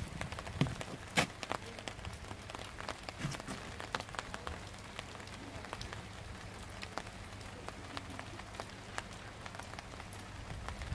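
Light rain pattering, with scattered drops ticking irregularly over a steady low background hum and one sharper tick about a second in.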